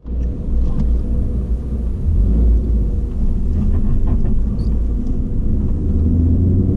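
Supercharged Mustang engine with a Whipple twin-screw supercharger running with a deep, steady rumble, a faint tone above it starting to climb near the end.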